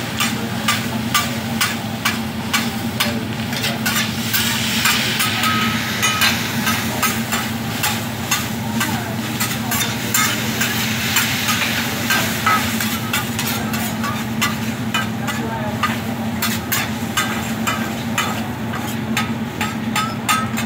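Food sizzling on a hibachi teppanyaki griddle while metal spatulas scrape and clack against the steel plate in quick, irregular strokes, over a steady low hum.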